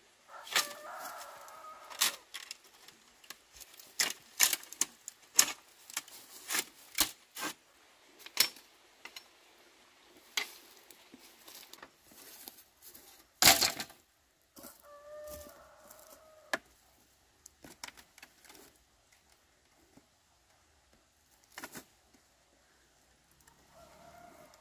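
A rooster crowing three times: near the start, a little past the middle and at the end, over a run of sharp knocks and taps, the loudest of them a little past the middle.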